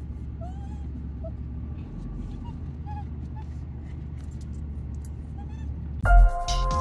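Steady low rumble of a truck driving, with a dog giving short high whimpers now and then. Electronic music cuts in suddenly about six seconds in.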